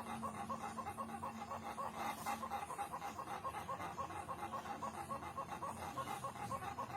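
Ayam Ketawa (Indonesian laughing chickens) calling: a continuous run of short, quick, evenly repeated notes, about five a second.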